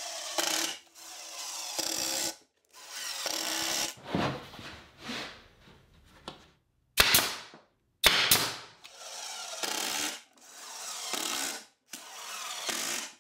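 Milwaukee cordless impact driver hammering 1 3/4 inch construction screws into birch plywood, in repeated bursts of about a second each with short pauses between screws. Two sharp knocks come about halfway through.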